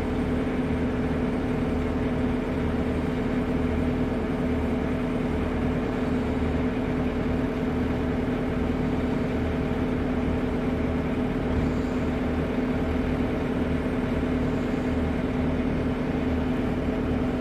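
Construction machinery running steadily: a loud continuous hum held at one pitch, with a low uneven rumble underneath.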